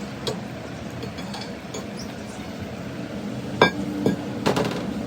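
Sharp metal-on-metal knocks and clinks, a few scattered strikes with the loudest about three and a half seconds in and a quick pair near the end, over a steady low machine hum.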